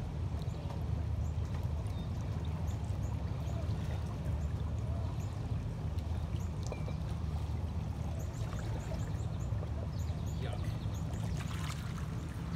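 Lake water splashing and trickling around a person wading waist-deep, with a louder splash near the end, over a steady low rumble.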